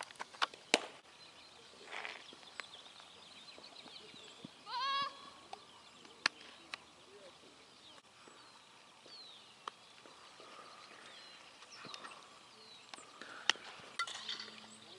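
Several sharp knocks, the loudest near the start and about six seconds in. About five seconds in comes a short quavering bleat, like a goat's, over faint bird chirps.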